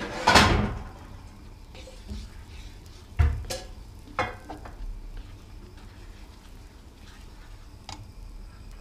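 A plastic slotted spoon stirring and scraping a melted butter and cornmeal mixture in a nonstick frying pan. There are a few short scrapes or knocks of the spoon against the pan: the loudest about half a second in, then two more around three and four seconds in, and a light one near the end.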